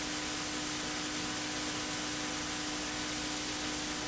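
Steady hiss with a faint steady low hum, the background noise of the sound system or recording, with no answer from the congregation.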